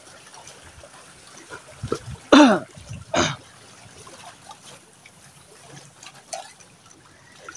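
Gentle seawater lapping and trickling over the shallow rocky shore. Two short voice sounds from a man stand out: one with a falling pitch about two seconds in, and another about a second later.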